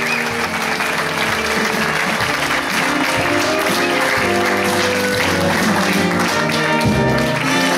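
Audience applauding steadily while curtain-call music plays for the cast's bows.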